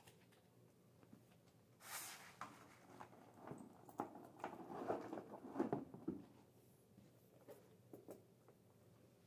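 Handbags being handled: rustling with light clicks and knocks of straps and metal hardware as one bag is put aside and another picked up, starting about two seconds in and lasting about four seconds, with a few faint clicks near the end.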